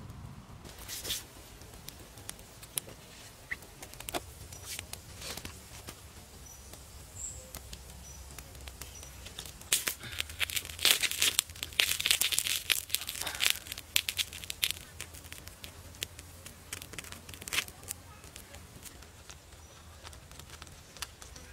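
Irregular crackling and popping from a small wood fire with a slab of meat cooking on a hot stone over it, densest and loudest in a cluster about ten to fourteen seconds in.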